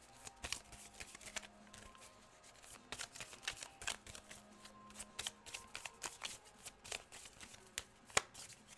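Tarot deck being shuffled by hand: an irregular run of quick card snaps and rustles, with one sharper snap near the end.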